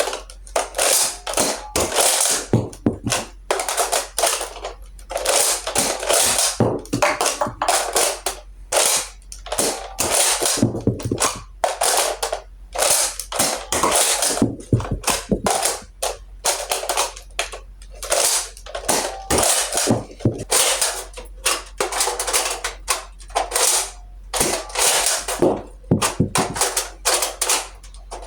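Nerf Elite Trilogy pump-action dart blaster being primed and fired over and over: plastic clacks of the priming handle pumped back and forth, and the snap of each shot, which fires three darts at once. The clusters of clicks repeat with short pauses between them.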